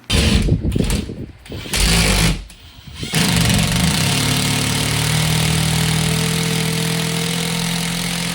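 Power drill boring into a wall stud: a few short bursts, then running steadily for several seconds with an even motor whine.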